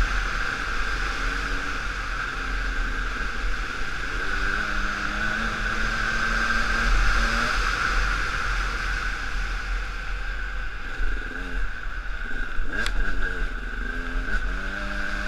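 Enduro dirt bike engine heard from the rider's helmet, its pitch rising and falling as the throttle is worked along the trail, with a couple of quick revs near the end, over wind noise on the microphone.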